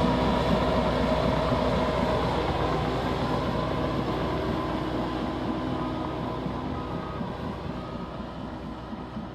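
Liebherr crawler bulldozer working, its diesel engine running with the clatter of its steel tracks, the sound fading away gradually.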